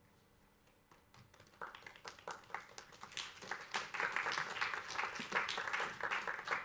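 Audience applause. It starts with a few scattered claps about a second in and builds into steady applause.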